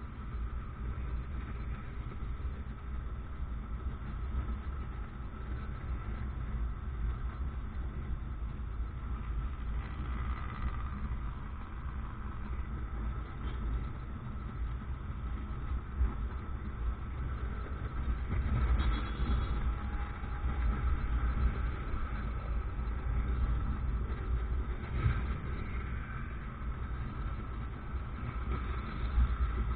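Motorcycle engine running while riding, with a steady low rumble and traffic around it; it grows somewhat louder for a few seconds past the middle.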